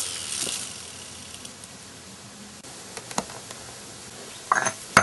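The electric motor of a Whirlpool rotary vane refrigerator compressor, spinning with its head off, winding down and falling in pitch until it stops. A few light clicks follow, and near the end metal compressor parts clink as they are set down on concrete.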